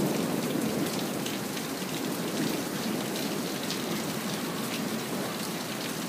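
Steady rain falling and pattering on a nearby surface, with many separate drops ticking. The last of a thunder rumble dies away in the first second or so.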